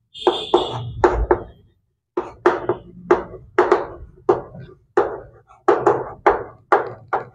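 Chalk writing on a blackboard: a quick run of short taps and scrapes as each letter is stroked out, about two a second. A brief high squeak sounds near the start.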